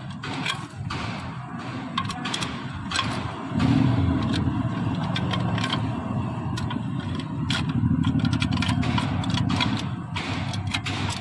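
A cylinder sleeve is being drawn out of a diesel engine block with a threaded puller: sharp metallic clicks and scraping as the puller is worked, because the bore has to be re-sleeved. A steady low mechanical rumble sets in about three and a half seconds in.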